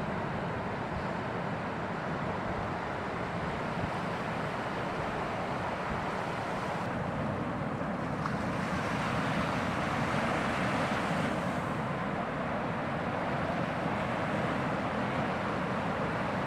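Ocean surf: a steady rush of breaking waves with wind buffeting the microphone, swelling louder about eight seconds in.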